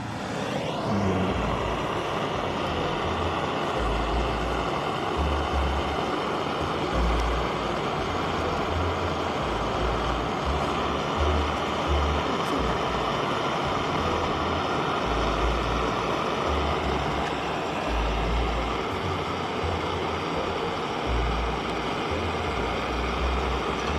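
Handheld gas torch burner blasting flame into a Swedish torch log to force it alight: a loud, steady roaring hiss that starts abruptly, with an uneven low rumble underneath.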